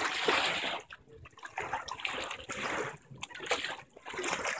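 River water washing over wet stone paving, coming in splashy surges about a second long with short breaks between them.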